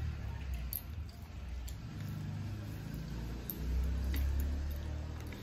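A low rumble that swells about three and a half seconds in, with faint wet clicks and squishes from fingers mixing rice and curry and from chewing.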